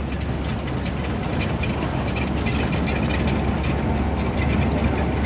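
Inside a moving intercity bus: steady low engine and road rumble with a scatter of small rattles, growing slightly louder.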